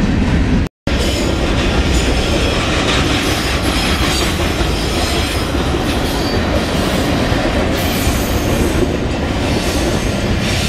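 Freight cars (covered hoppers and tank cars) rolling past on the rails: a loud, steady rumble and clatter of steel wheels on track. The sound cuts out completely for a moment about a second in.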